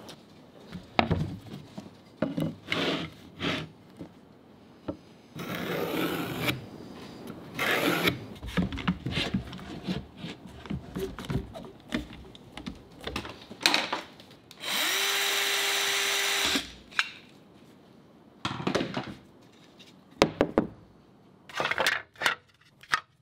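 Woodworking and fitting sounds: a series of knocks, clatters and scrapes from handling plywood and tools, and a cordless power tool that spins up and runs steadily for about two seconds a little over halfway through.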